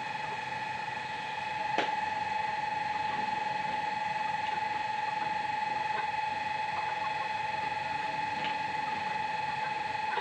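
A steady whining hum holding one pitch, with a few faint clicks and one sharper tap about two seconds in.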